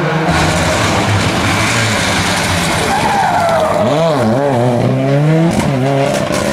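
Ford Escort rally car at full attack through a corner. The engine's pitch swings sharply up and down several times in the second half as the driver works the throttle and gears, over tyre and gravel noise as the car slides.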